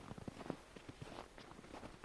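Footsteps in cold snow: a quick, irregular run of crisp crunching squeaks underfoot.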